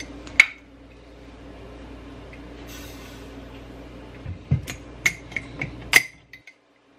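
Glass swing-top jar clinking as it is handled: a sharp glassy clink about half a second in, then a run of lighter clinks and knocks from its lid and wire clasp between about four and six seconds.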